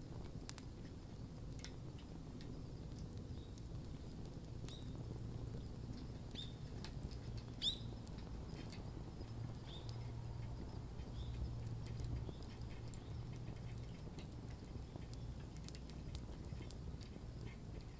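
Wood campfire crackling: scattered sharp pops and ticks over a low steady rumble of the burning fire, with one louder pop about eight seconds in.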